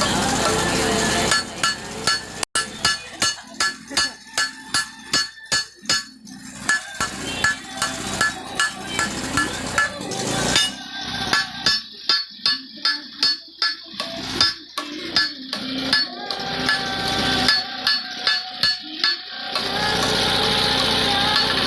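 Blacksmith's hammer striking metal on an anvil, a long run of ringing blows at about two to three a second. A steady machine noise is heard before the blows start and again after they stop.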